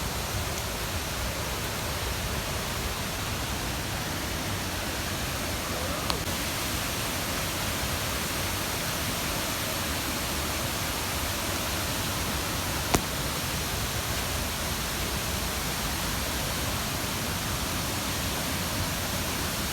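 Steady rush of falling water from a waterfall, with one short sharp click about thirteen seconds in.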